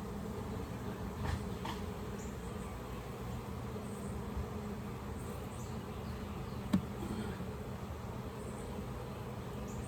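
Honeybees buzzing steadily around an open hive, with a single short click about seven seconds in.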